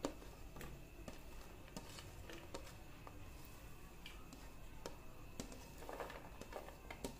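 Faint, scattered light taps and clicks of fingers scraping chopped vegetables across a ceramic plate and the pieces dropping into a steel bowl of raw eggs.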